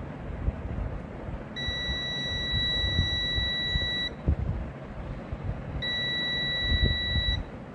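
ANENG Q1 digital multimeter's continuity buzzer beeping twice, a steady high tone of about two and a half seconds and then one of about a second and a half, each time the probes touch the pins of the TV power-supply MOSFET. The beep signals near-zero resistance: the MOSFET is shorted.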